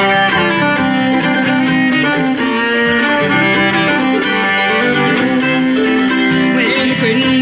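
Bluegrass band's fiddle and strummed acoustic guitar playing a slow instrumental introduction, the fiddle carrying the melody over even guitar strums.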